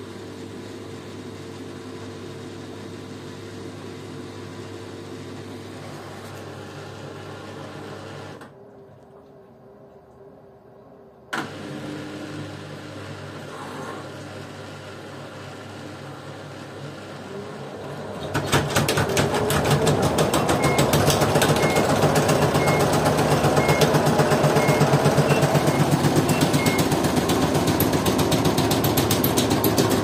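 LG Direct Drive front-loading washing machines running: a steady motor drone while the drum turns, a few quieter seconds ended by a sharp click, then past the middle a much louder run with fast rapid rattling, as in a spin, and a string of short electronic beeps.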